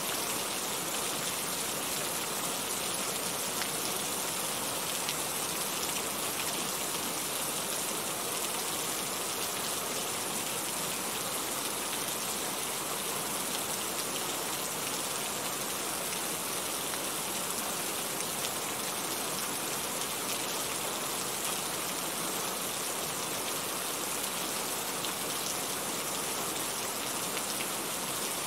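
Steady rain falling, an even hiss with scattered faint drop ticks and no let-up.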